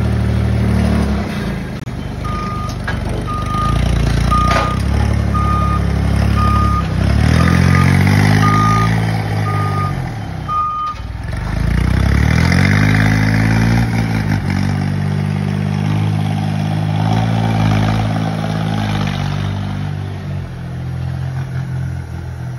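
Truck-mounted forklift engine running and revving up and down twice as it manoeuvres, with a reversing alarm beeping about once a second through the first half.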